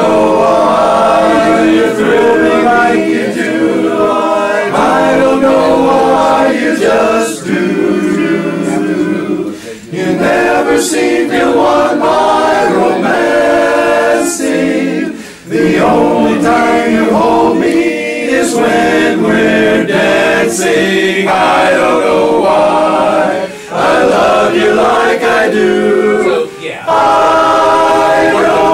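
A group of men singing a cappella in barbershop close harmony, holding ringing chords with a few short breaks between phrases.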